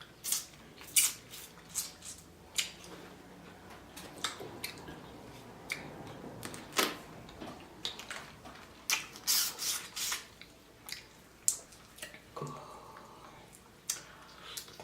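Close-up eating of a seafood boil: irregular sharp cracks and clicks of crab and crawfish shells being broken open, with wet squishing, sucking and lip-smacking between them.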